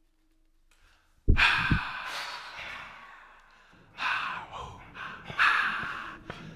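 Three breathy, unpitched gasps and exhalations from the ensemble, used as an extended technique in a contemporary piece. The first comes suddenly about a second in with a low thump and fades over a couple of seconds; two shorter ones follow.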